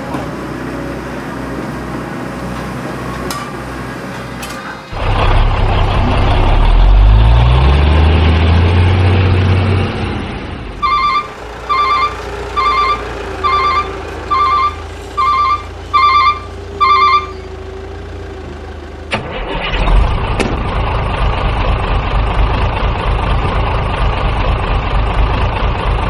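Diesel-style construction-vehicle engine sounds: a steady run, then an engine starting and revving up, followed by a reversing alarm beeping eight times, evenly spaced, then a loud, rough engine run.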